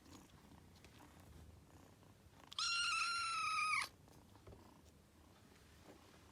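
Scottish Fold kitten giving one long, high meow about two and a half seconds in, lasting just over a second.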